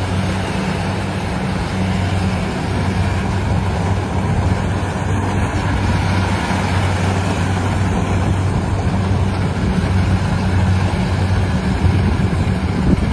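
An engine running steadily, a low hum under a dense mechanical din, typical of farm machinery working the rice field.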